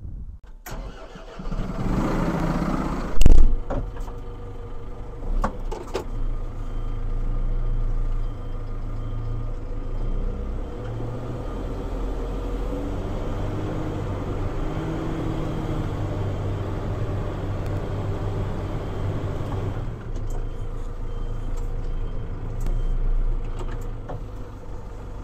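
A vehicle engine running steadily, with a few sharp knocks, the loudest about three seconds in.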